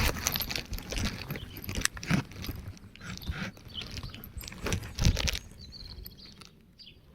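Crunching, scraping and knocking handling noises close to the microphone, loudest about two and five seconds in, then dying down; faint bird chirps near the end.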